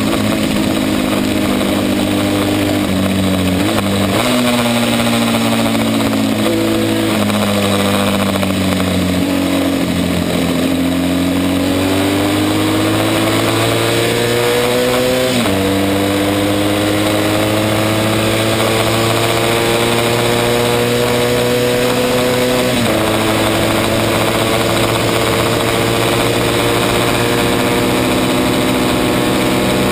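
Classic racing motorcycle engine at speed, heard from onboard. The note falls as the bike slows over the first third, then climbs steadily through the gears, with a sudden drop in pitch at each of two upshifts, about halfway and about three-quarters through.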